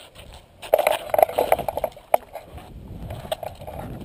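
Water splashing close by in a quick run of short bursts for about a second and a half, then a lower, steadier rubbing noise.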